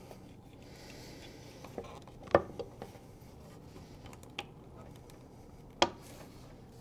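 Quiet handling noise as fingers work a plastic cable tie around tonearm cables under a turntable's metal base. Three sharp clicks stand out, the loudest about two and a half seconds in and again near the end.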